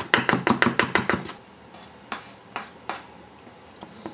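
Chef's knife rapidly chopping fresh parsley on a wooden cutting board, about seven strokes a second, stopping about a second and a half in; a few scattered light knocks follow.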